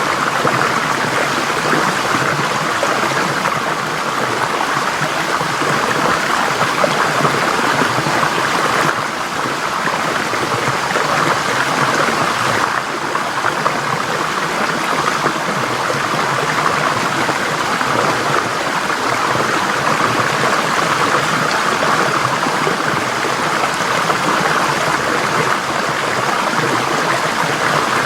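Forest stream flowing steadily over rocks, a continuous rushing and burbling of water.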